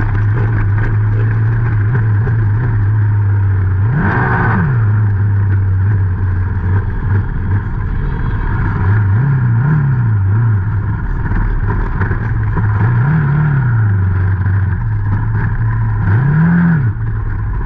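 Youth racing quad's engine running at low speed, its pitch rising and falling in four short bursts of throttle.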